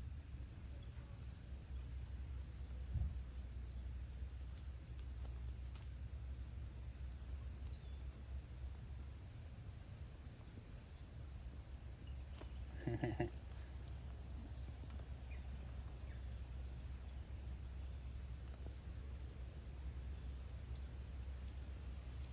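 Crickets chirping in a steady, high-pitched chorus, with a short pitched call about thirteen seconds in.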